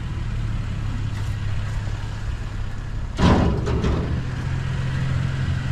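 Vehicle engine idling with a steady low hum. About three seconds in there is a loud, short metallic clatter as pieces of wire shelving are handled.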